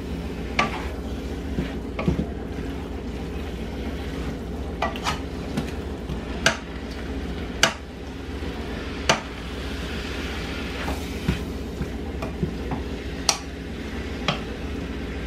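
A utensil stirring chicken and broccoli in a skillet, knocking against the pan with sharp, irregular clicks every second or two, over a steady sizzle of food cooking.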